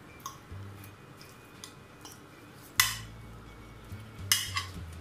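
Metal fork clinking and scraping on a glass baking dish as pork chops are turned over in it, with two sharper clinks, the loudest a little under three seconds in and another at about four and a half seconds.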